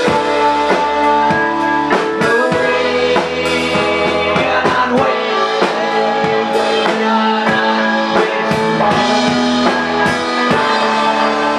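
Live rock band: electric guitar, keyboard and a drum kit with cymbals playing a song together at full volume, with a man's voice singing at times.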